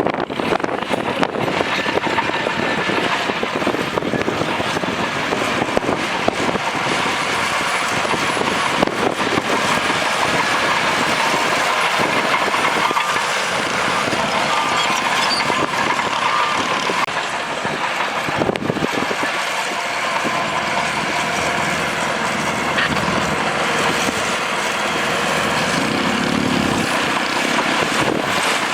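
Bulldozer's diesel engine running steadily under load, with a dense clatter of its steel tracks.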